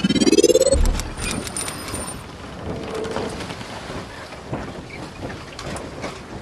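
Logo intro sound effect: a rising whoosh that ends in a low boom about a second in, followed by a steady crackling hiss with scattered clicks.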